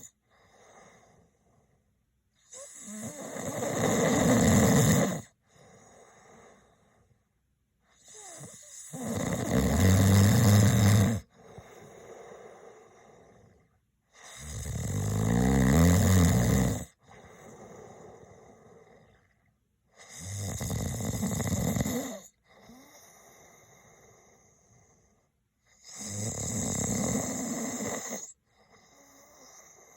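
A man snoring: five loud rasping snores, each lasting two to three seconds and coming about every six seconds, with quieter breaths between them.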